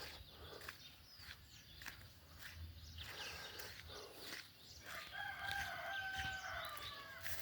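A rooster crowing once, faint: one long drawn-out crow starting about five seconds in and dipping slightly in pitch at its end.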